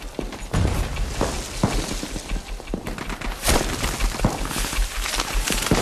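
Gunfire in a battle scene: scattered, irregular gunshots and bullet cracks several times a second, one louder crack about three and a half seconds in, over a steady low rumble.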